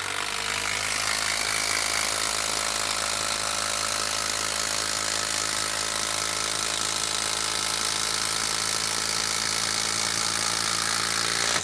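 DeWalt 12V XTREME brushless impact driver hammering steadily as it drives a long TimberLOK structural screw into a wooden log round under heavy load, then cutting off abruptly as the screw is driven home.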